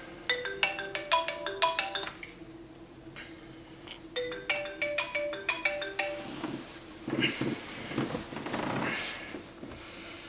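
A short ringtone-like tune of quick bell-like notes plays twice, about two seconds apart, over a steady low hum. After the second phrase, a noisy whooshing swell rises and fades.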